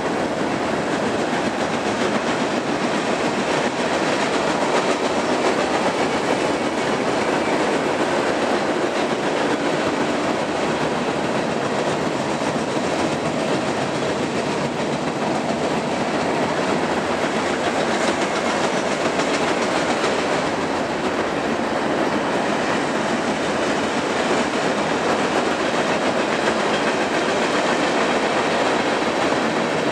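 Freight cars of a mixed train (tank cars, boxcars and hoppers) rolling steadily across a steel deck-truss bridge, a continuous, even noise of wheels on rail.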